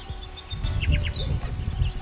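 Small birds chirping, with short high notes and quick sweeps, over an uneven low rumble.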